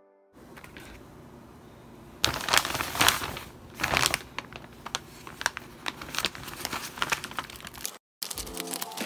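A plastic courier bag and a kraft-paper envelope crinkling and rustling as they are handled, with a few louder crackles about two to four seconds in. Background music comes back in near the end after a brief dropout.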